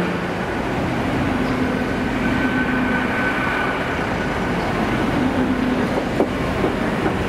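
GWR Intercity Express Train coaches running past along the platform: steady rumble of wheels and running gear with a faint hum that comes and goes, and a single sharp click about six seconds in.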